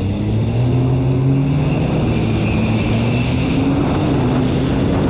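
Sea-Doo jet ski engine running under throttle. Its pitch rises a little over the first second or so, then holds fairly steady with small wavers, over a steady rush of noise.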